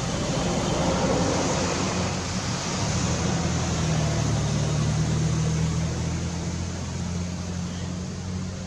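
A motor vehicle's engine running with a low, steady hum under a broad hiss; the hum grows stronger partway through, then eases.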